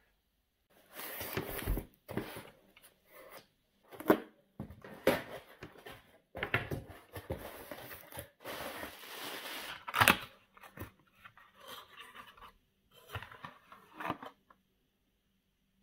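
A cardboard shipping box being opened by hand: its flaps scrape and the packaging rustles in irregular bursts, with a sharp knock about 4 seconds in and another about 10 seconds in. Near the end a small paperboard carton is opened.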